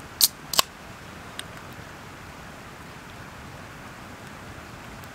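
An aluminium pull-tab beer can being cracked open: two sharp clicks in quick succession near the start, then a steady hiss in the background.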